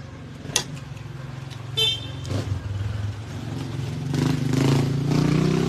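A motor vehicle engine running and growing louder over the last two seconds as it comes nearer. A short high tone sounds a little under two seconds in.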